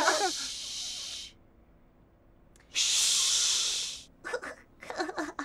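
Two long hisses, each about a second and a quarter, with a near-silent gap between them.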